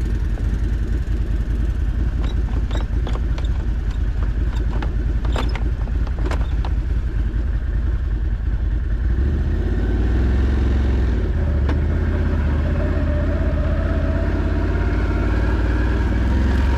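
ATV engine running steadily on a ride along a forest track, with a scatter of sharp clattering knocks in the first half. About halfway through the engine note picks up and grows louder.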